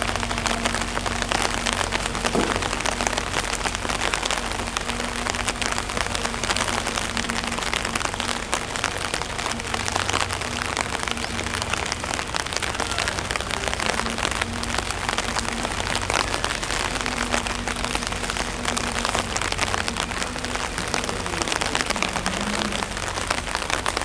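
Steady rain pattering on hard surfaces, a dense hiss full of fine drop ticks. A faint low hum comes and goes underneath.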